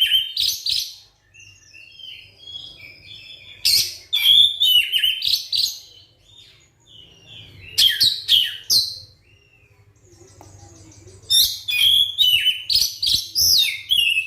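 Oriental magpie-robin singing: loud bursts of rapid, varied whistled and chattering phrases come about every four seconds, with softer twittering between them.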